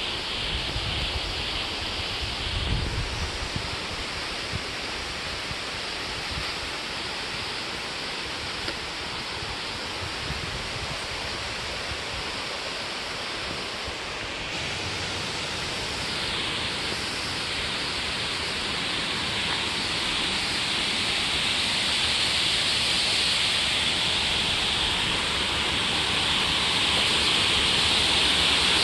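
Steady rush of running water, growing louder over the second half, with a few low rumbles of wind on the microphone in the first few seconds.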